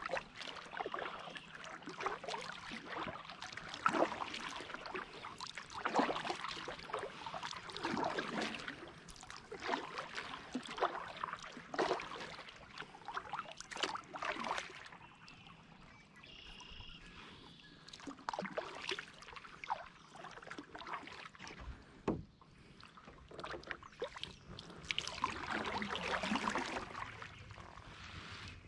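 Kayak paddle strokes: the blade dipping and splashing in calm water about once every one to two seconds, with a pause of a few seconds about halfway through.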